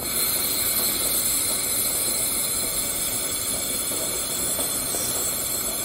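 Compressed air hissing steadily out of the air valve on a Reese Goose Box air-ride pin box as air is let out to lower the pressure and fine-tune the ride.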